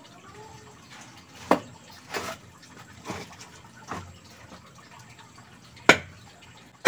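Pieces of teak wood knocking and clattering as they are handled and set down on the workshop floor: five separate knocks about a second apart, the loudest near the end.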